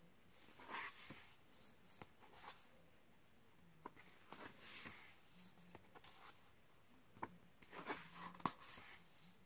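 Pages of a paperback colouring book being turned and pressed flat by hand: faint paper swishes, three of them, with a few light ticks in between.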